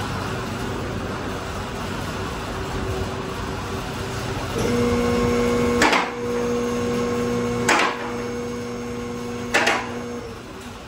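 Tuxedo two-post car lift's electric hydraulic power unit starts about four and a half seconds in and runs with a steady hum as the lift rises, stopping near the end. Three sharp clicks come about two seconds apart while it runs: the lift's safety locks catching as the carriages climb.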